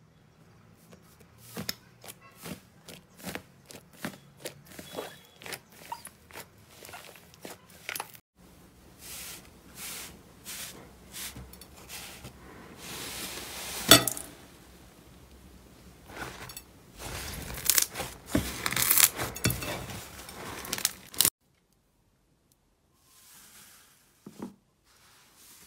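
Slime pressed and kneaded by hand, popping and crackling: first a run of sharp pops about two a second, then denser crackling with a loud snap near the middle. Near the end there are only faint soft squishes.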